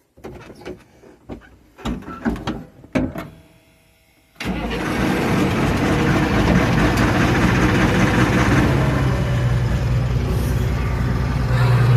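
A few clicks and knocks, then about four seconds in a combine harvester's diesel engine starts up abruptly and runs steadily with a low hum.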